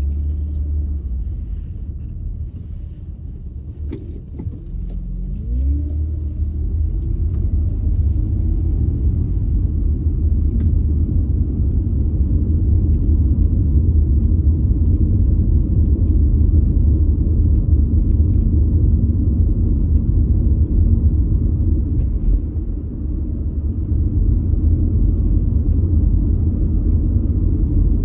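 Car in motion heard from inside the cabin: a steady low rumble of engine and tyres on the road. About five seconds in the engine note rises as the car speeds up, and the rumble then holds steady at cruising speed.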